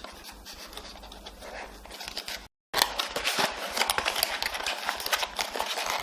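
Faint scratching and rustling of something being handled. It cuts out completely for a moment about two and a half seconds in, then comes back as dense crackling and scratching with many small clicks.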